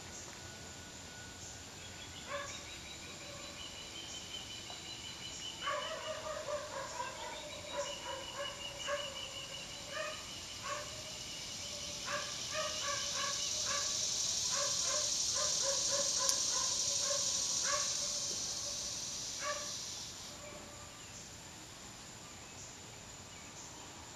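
A bird calling in rapid runs of short repeated notes, starting about two seconds in and stopping around twenty seconds in. A steady high hiss swells in the middle and fades near the end of the calling.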